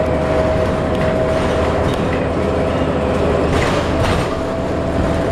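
Inside a 2008 New Flyer D40LF diesel city bus under way: steady engine and drivetrain drone with a constant whine over road noise. A brief rush of hissing noise swells about three and a half seconds in.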